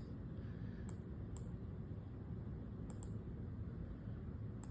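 Laptop clicks as listing photos are advanced: two single clicks, then two quick double clicks.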